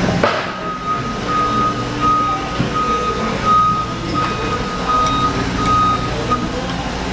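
Vehicle reversing alarm beeping: a single high tone repeated about one and a half times a second over a steady low workshop hum, stopping near the end.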